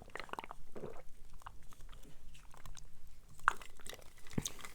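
Close-miked chewing of a mouthful of sloppy joe casserole: soft, irregular wet mouth clicks at a quiet level.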